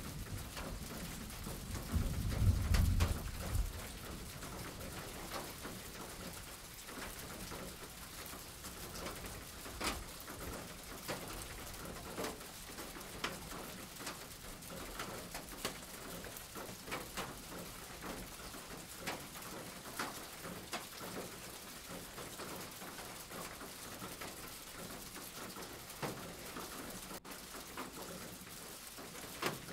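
Steady rain with scattered drops ticking throughout. About two seconds in, a louder low rumble lasts a second or so.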